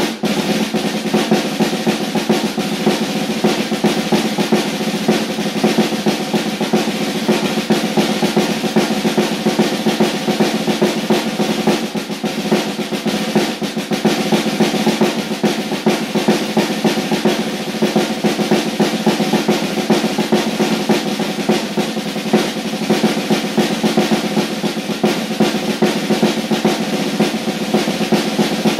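Snare drum played with sticks: a fast, unbroken stream of strokes and rolls at a steady loudness.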